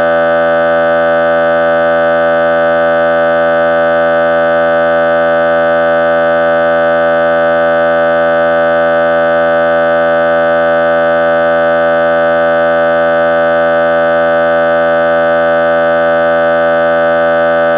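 A loud, unchanging electronic drone of many steady pitches at once, with no variation at all.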